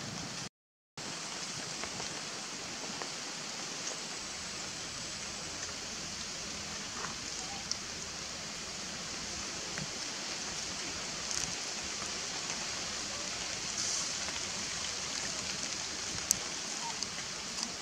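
Steady outdoor background hiss, strongest in the high range, broken by a brief dropout just under a second in, with a few faint ticks and one sharp click near the end.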